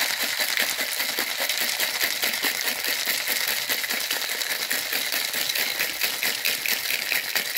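Ice cubes rattling in a cocktail shaker being shaken hard to chill the drink: a fast, steady rattle of ice striking the shaker walls. The shaker is a cobbler type with a built-in strainer on top, holding rum, pineapple juice and lime juice over ice.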